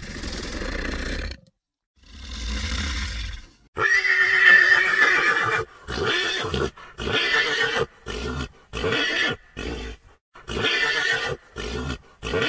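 Horse neighing: one long whinny about four seconds in, then a string of shorter whinnies about one a second. Before it come two low growls.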